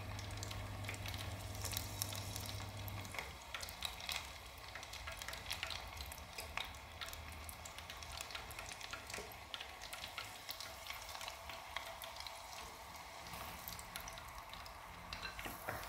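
Battered chicken fillet pieces deep-frying in hot oil in a small enamel pot: a steady sizzle thick with small crackling pops. A low hum underneath stops about three seconds in.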